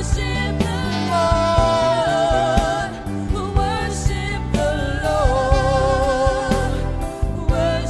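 A song playing: a singer holds long notes with vibrato over a steady drum beat.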